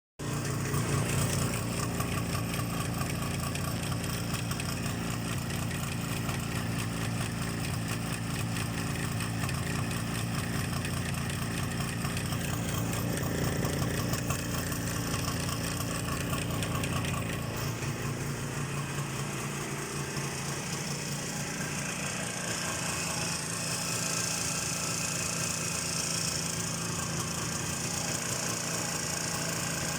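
Jawa 634's two-stroke twin-cylinder engine running steadily, with the piston knock the owner hears in this original, never-opened engine at 31,000 km. The deep part of the sound thins out a little past halfway.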